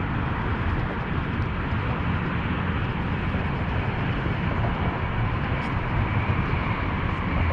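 Steady outdoor rumble and hiss, heaviest in the low end, with no distinct events.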